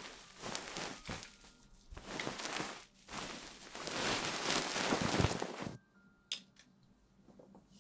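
Close-miked ASMR rustling and scrubbing noises in uneven bursts, stopping abruptly about six seconds in, followed by a single sharp click.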